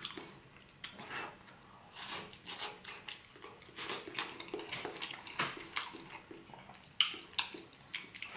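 A person chewing a mouthful of paella rice: many irregular, wet smacking and clicking mouth sounds.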